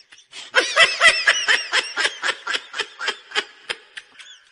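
High-pitched laughter in quick, even pulses, about four a second, starting about half a second in and stopping shortly before the end.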